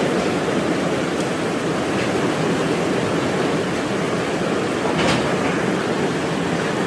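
Heavy thunderstorm rain pouring down steadily, driven by strong wind, with a few faint ticks about one, two and five seconds in.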